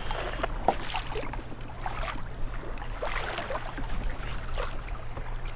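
Sea water splashing and lapping against a kayak's hull, in scattered short splashes.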